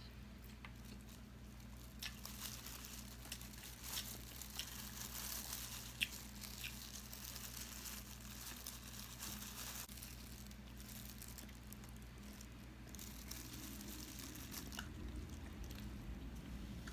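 Faint chewing and eating of food with a few small clicks and crunches, over a steady low electrical hum.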